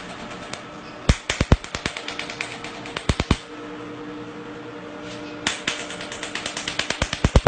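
Cosmetic skin laser firing pulses onto the face, each pulse a sharp snap against the skin. The snaps come in scattered groups of two to four, then settle into a quickening regular train near the end.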